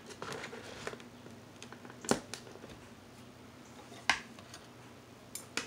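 Clear plastic deli cups and lids being handled: a few sharp plastic clicks and taps, the loudest about two and four seconds in, with two more close together near the end.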